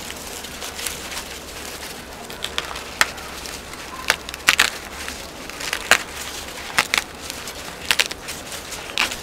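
Dry sweet corn husks and leaves crackling and snapping as a dried ear of corn is broken off its stalk by hand. The crackles are scattered and irregular, the sharpest a few seconds in.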